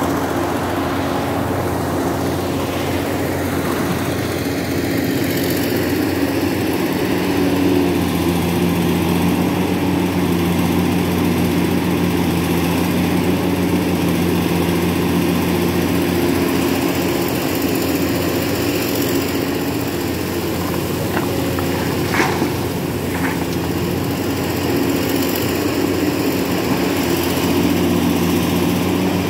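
Scania 164L 580's V8 diesel idling steadily, with two short sharp clicks about three-quarters of the way through.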